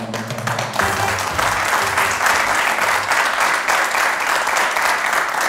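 Audience applause, steady and even, taking over about a second in as the last notes of the show's intro music die away.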